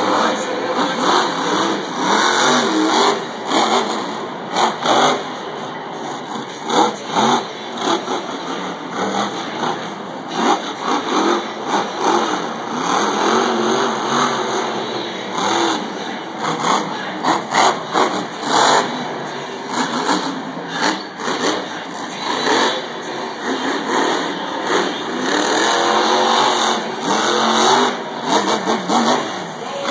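Monster truck's supercharged V8 revving up and down again and again as it drives and jumps, loud and coarse.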